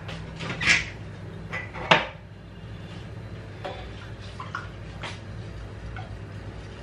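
A few knocks and clinks of kitchen items being handled, the two loudest within the first two seconds and fainter ones later, over a steady low hum.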